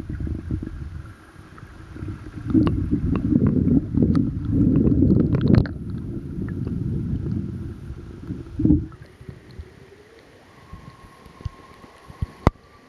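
Wind buffeting the microphone in loud, uneven low rumbles over the steady rush of a shallow river riffle. The rumble stops abruptly about nine seconds in, leaving the fainter riffle and one sharp click near the end.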